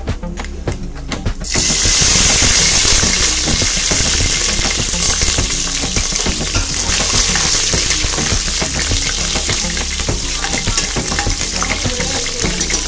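Green chillies sizzling loudly in hot oil in a steel pressure cooker, the frying starting suddenly about a second and a half in as they go into the oil. Background music runs underneath and is heard alone before the sizzle starts.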